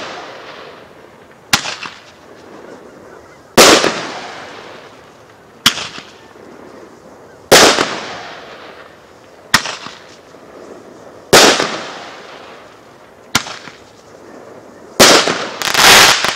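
Heron Roman candle firing: sharp pops about every two seconds, alternating a lighter pop with a louder bang that trails off in a long echo. Near the end two loud bangs come close together.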